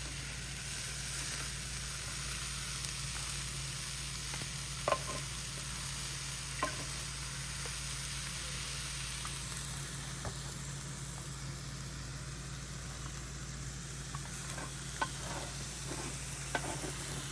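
Chicken and vegetable stir fry sizzling steadily on a hot Blackstone flat-top griddle, with a few sharp clicks as it is stirred and turned on the steel.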